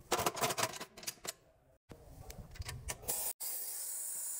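Metal clicking and clinking as steel pulling gear is fitted to a car sill: a pulling bracket on the bench, and a hook on a chain clipped to a row of pull rings. About three seconds in, a steady hiss starts.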